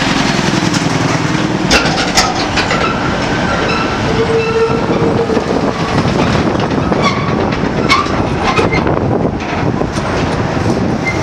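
Heavy tractor-trailer traffic passing close by: diesel engine rumble and tyre noise, with clattering from the trailers and a few brief high squeals.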